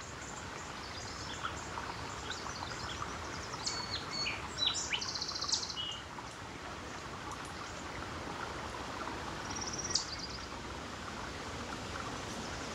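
Outdoor ambience: a steady background hiss with small birds chirping, a cluster of short high calls and a quick trill around four to six seconds in, and another call near ten seconds.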